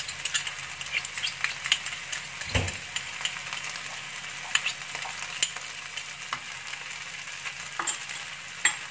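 Rice frying in oil and butter in a wok with a steady sizzle, while a metal spatula stirs it, scraping and clicking against the pan. There is a single low thump about two and a half seconds in.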